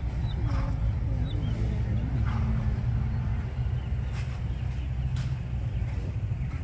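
Steady low wind rumble on a phone microphone, with two sharp clicks about four and five seconds in.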